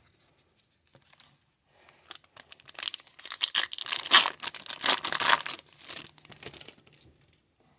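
Foil wrapper of a trading-card pack being torn open and crinkled, a dense run of crinkling from about two seconds in until about seven seconds in, loudest in the middle.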